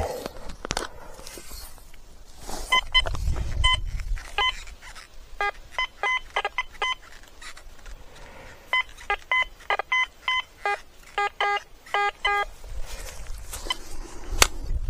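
Quest X10 Pro metal detector giving its target tones: short, quick beeps in three runs as the coil sweeps back and forth over buried metal.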